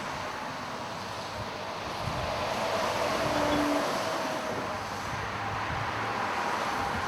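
Steady rush of road traffic on a highway, swelling as a vehicle passes between about two and four seconds in, with a faint brief tone over the noise.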